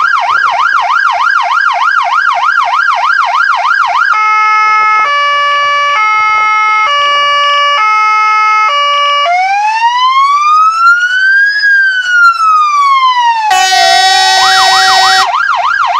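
Fire engine's electronic siren cycling through its tones: fast up-and-down sweeps, about three or four a second, for the first four seconds; then a stepped pattern of held tones switching back and forth; then one slow wail rising and falling. About thirteen and a half seconds in, a loud horn blast sounds for about two seconds as the fast sweeps start again.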